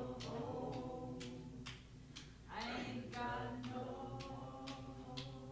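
A group of voices singing a tune a cappella, holding sustained notes, with sharp claps keeping a steady beat about twice a second.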